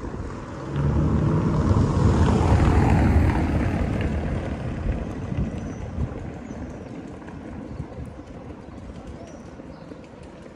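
A car passing close by and driving away over cobblestones: the engine and tyre rumble rises sharply about a second in, peaks, then fades away steadily.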